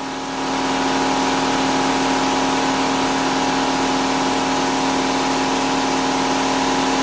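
Blast cabinet's machinery running steadily: a constant hum with an even hiss over it, getting a little louder about half a second in.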